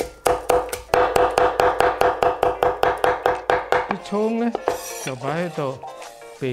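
Chinese cleaver chopping green onions on a wooden cutting board: a fast, even run of knife strokes that stops about four seconds in.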